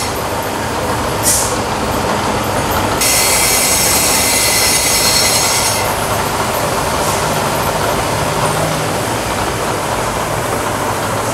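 Bridgeport milling machine running with its cutter in an aluminium alloy wheel, refinishing the bolt holes to set the wheel's PCD. A shrill squeal of the tool cutting rises over the steady machine and shop noise from about 3 s to about 6 s in.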